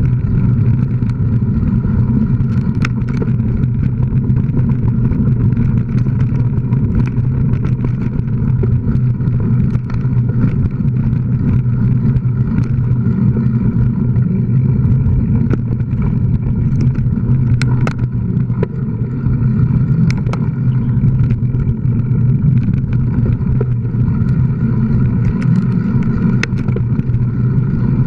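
Steady loud wind rumble over the microphone of a camera moving fast along a dirt trail, with scattered light clicks and rattles.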